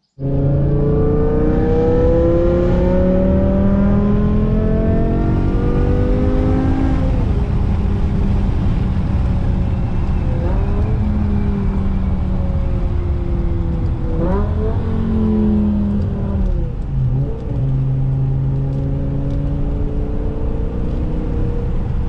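BMW E60 M5's S85 V10 engine pulling under acceleration, heard from inside the cabin. Its pitch climbs steadily for the first several seconds, then drops and swings up and down a few times with gear changes and throttle lifts.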